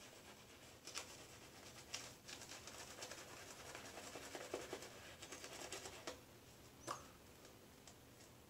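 Shaving brush being worked over a lathered, stubbled face: faint, continuous scratching and swishing of bristles through the lather, with a few soft ticks, the clearest about seven seconds in.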